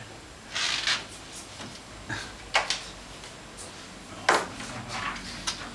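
Hand-lever T-shirt heat press being worked: a short rustle about half a second in, then two sharp clunks nearly two seconds apart.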